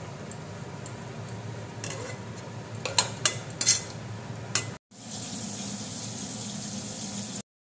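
A flat spatula scrapes and stirs thick cooked cabbage curry in an aluminium kadai, knocking the pan's side in about five sharp clinks over a steady hiss. After a brief break the hiss goes on, then cuts off sharply near the end.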